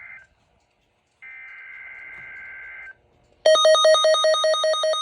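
Emergency Alert System SAME header data tones from a NOAA weather radio: faint warbling digital bursts, one ending just after the start and another lasting under two seconds. About three and a half seconds in, a much louder fast-pulsing electronic alert tone starts, about eight beeps a second, signalling the emergency alert.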